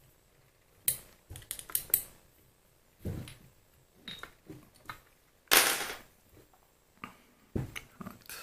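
Small steel and aluminium parts of a mini lathe's apron being handled and fitted: irregular light clicks and clinks, with one louder, half-second rattle about five and a half seconds in.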